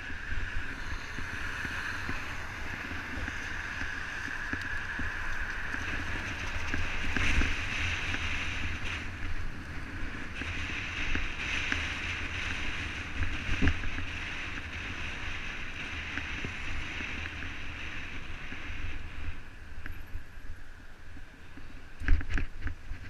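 Wind buffeting the microphone over steady tyre hiss on a wet road while riding, with a few sharp knocks from going over rough, patched tarmac near the end.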